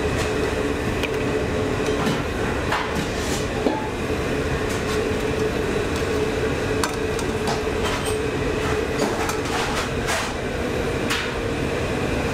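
Steady hum of commercial kitchen equipment with a constant tone running under it. Scattered light clinks of a metal ladle against ceramic plates and a steel tray come through the hum.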